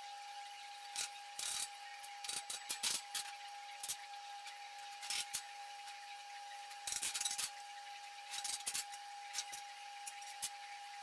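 MIG welder laying short tack welds on steel tubing: irregular bursts of crackle, some a fraction of a second and a longer one about seven seconds in. A steady high hum runs underneath.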